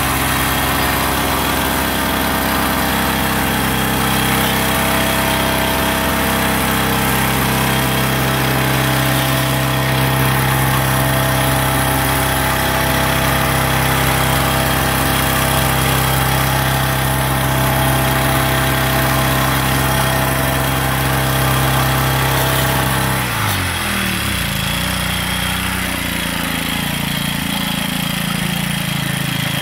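Troy-Bilt TB516EC lawn edger's small four-stroke engine running steadily at high throttle. About 23 seconds in its speed drops in a falling slide and it settles to a lower, steady run.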